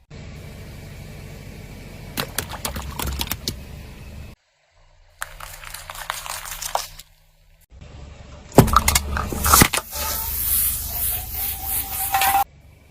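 Brittle objects crackling and cracking as a car tyre crushes them, in several short bursts of sharp cracks over a low rumble, broken by abrupt cuts. The loudest cracks come about two-thirds of the way in.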